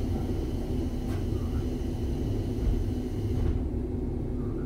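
Diesel railcar's Komatsu replacement engine idling, heard from inside the passenger cabin as the KiHa 40 8000-series car stands at a platform: a steady low rumble. A high hiss over it cuts off about three and a half seconds in.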